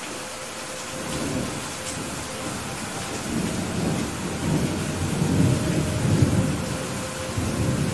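Heavy rain falling as a steady hiss, with a low rolling thunder rumble that builds from about three seconds in, is loudest around the sixth second and then eases off.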